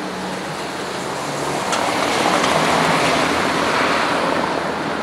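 Street traffic noise: a vehicle passing close by, its rushing sound swelling to a peak around the middle and fading again, over a faint low engine hum.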